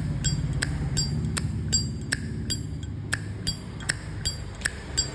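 Vintage brass Zippo lighter, a 1964 model, clicking over and over at about three sharp metallic clicks a second as it is worked in the hand.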